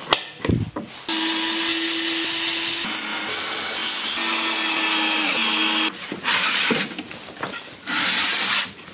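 Bosch 12 V cordless drill running for about five seconds as it drills holes into melamine-faced chipboard, its motor pitch dropping just before it stops. Two short scraping sounds follow.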